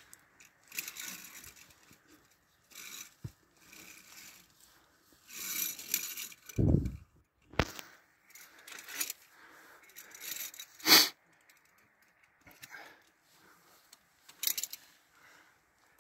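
Irregular clinks and scuffs of via ferrata climbing gear: metal carabiners knocking on the steel safety cable and rock as a climber moves up. A low thump comes about seven seconds in, and a loud, sharp knock about eleven seconds in.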